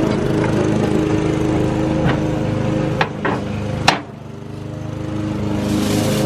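A small engine drones steadily in the background while metal barbecue grill grates are set down on a gas grill with a few sharp clanks, the loudest about four seconds in. Near the end, aluminium foil crinkles.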